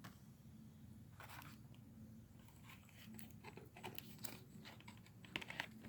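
Faint clicks and crinkles of plastic toy packaging being handled, scattered at first and coming more often towards the end.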